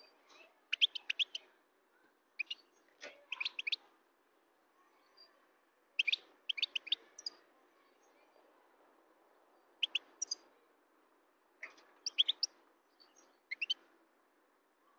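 European goldfinch singing: short phrases of rapid, high twittering notes, a handful of phrases with quiet pauses between them.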